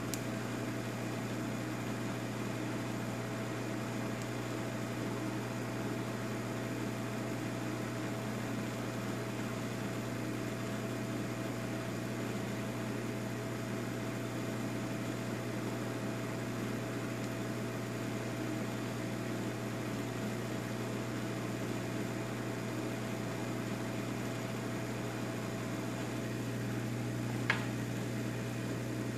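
Hot-air rework station blowing steadily onto a phone circuit board: a constant low hum with fan hiss. A single sharp click near the end.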